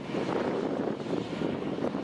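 Diesel engine of an articulated hauler running steadily as it drives across a field, a continuous drone with wind noise on the microphone.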